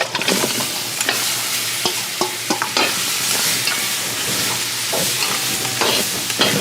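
Seasoned crab pieces going into hot curried oil in a pot and sizzling loudly, the sizzle starting suddenly. Through it come repeated knocks and scrapes of a utensil against the pot as the crab is stirred into the curry.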